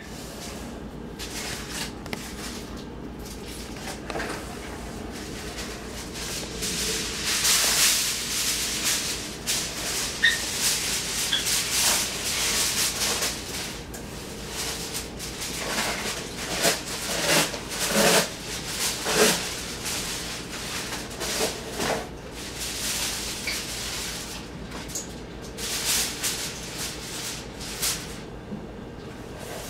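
Household handling noises: irregular rustling and scraping with light knocks and clatter, over a steady low hum.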